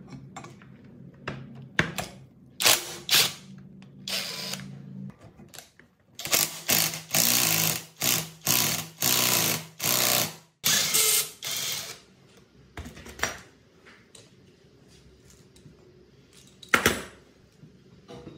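Power wrench run in about nine short, loud bursts over some six seconds, undoing the centre nut of a generator engine's rusty flywheel. Scattered metal clicks and clanks come before it, and a single sharp knock comes near the end.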